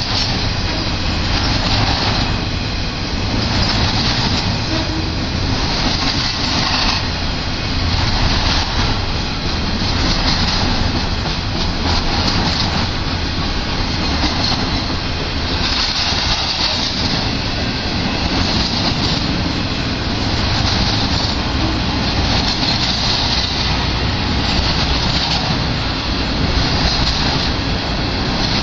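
Intermodal freight train's cars, loaded with semi-trailers and containers, rolling steadily past: a continuous rumble and rattle of wheels on rail, with a higher hiss that swells and fades about every two seconds.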